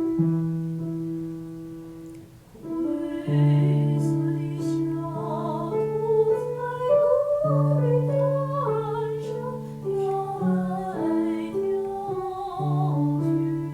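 Piano accompaniment with a woman singing a slow song with vibrato; the piano chords come first and the voice enters about three seconds in.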